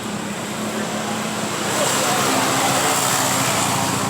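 A car accelerating past on the street, its engine and exhaust growing louder about a second and a half in and staying loud.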